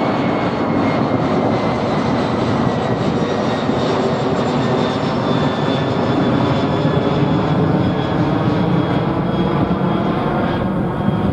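Airliner's jet engines running, a loud steady rush with faint whining tones that slowly fall in pitch.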